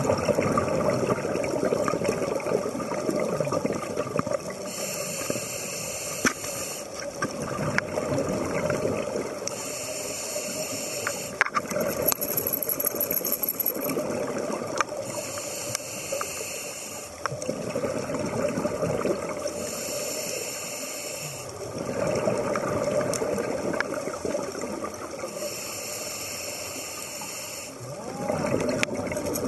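Scuba diver breathing through a regulator underwater: a hiss from the regulator on each inhale alternating with a longer rumble of exhaled bubbles, about one breath every five seconds.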